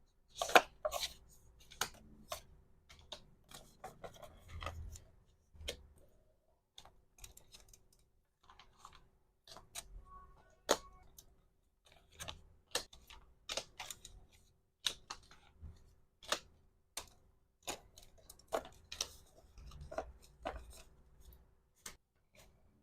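Close-up packing sounds: irregular sharp clicks and taps, with softer rustles, as small plastic accessories and their packaging are handled. A faint steady hum sits underneath.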